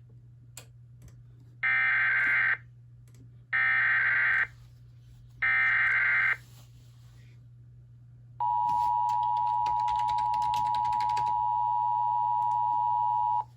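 Emergency Alert System SAME header: three identical bursts of warbling digital data tones, each about a second long. Then a steady, single-pitched alert attention tone near 1 kHz sounds for about five seconds and cuts off sharply, announcing the warning message. A faint steady hum lies underneath.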